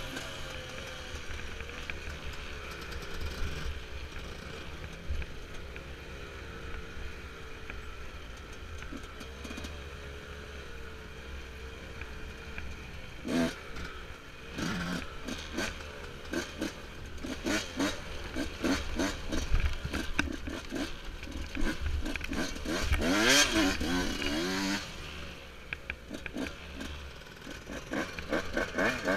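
Yamaha YZ125's single-cylinder two-stroke engine being ridden, running at a fairly steady, light throttle at first. From about halfway through, the engine is revved up and down over and over in quick rises and falls, louder at its peaks, easing off briefly before it picks up again near the end.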